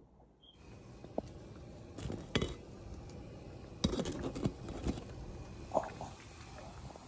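Scattered clinks and knocks of glass bowls and kitchenware being handled, over a faint steady hiss that comes in about half a second in.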